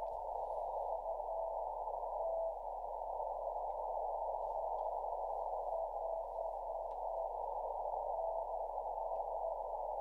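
Weak, slow Morse code on a shortwave receiver: a faint tone keyed on and off in short dashes, barely above a band of hiss shaped by the narrow CW filter. The signal is down in the noise and hard to copy.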